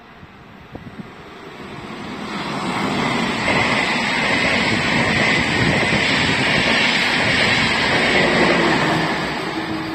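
ÖBB Railjet express passing through the station at speed: a rush of wheel-on-rail and air noise that builds over the first few seconds, holds steady with a hissing edge, then begins to fade near the end.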